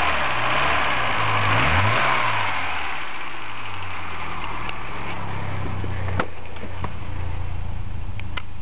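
BMW E30 318i's M10 four-cylinder engine revved at the throttle, the revs rising and falling back in the first two seconds, then settling to a steady idle; the owner says it is in good running condition. A sharp click comes about six seconds in.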